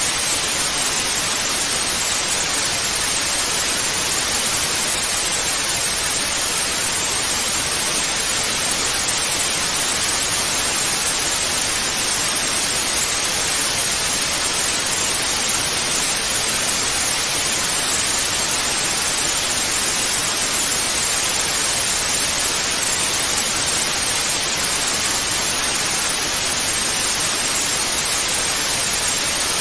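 Television static: a steady, even hiss of white noise, strongest in the upper range, unchanging throughout.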